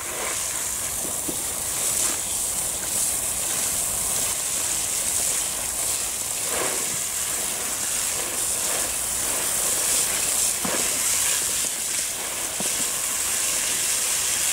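Garden hose spray nozzle running steadily, its jet hissing onto potatoes and water in a plastic tray as they are rinsed.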